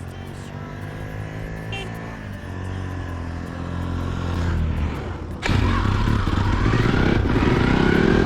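Motorcycle engine running as the bike is ridden, growing steadily louder. About five and a half seconds in, it jumps suddenly louder, with a rough rushing noise over the engine.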